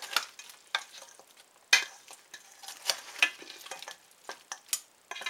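Sauce-coated chicken wings being tossed in a bowl: irregular clacks and scrapes against the bowl, the sharpest a knock just under two seconds in.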